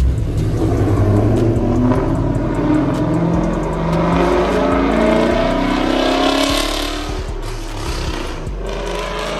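Exhaust of a 2014 Mustang GT's V8, straight through catless longtube headers and an off-road X-pipe, accelerating hard away. Its pitch climbs through several gears, then fades.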